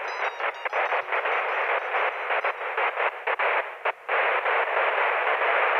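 Static-like hiss on the soundtrack, chopped into rapid stutters with faint high tones trailing away, then running steady from about four seconds in.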